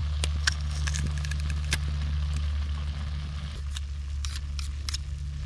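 Vegetables frying in a pot over a campfire, with irregular sharp crackles and clicks and a few scrapes over a steady low rumble.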